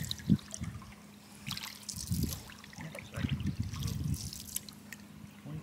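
Wooden canoe paddle strokes in lake water: small splashes and water trickling and dripping off the blade, with a few dull low thuds at irregular intervals.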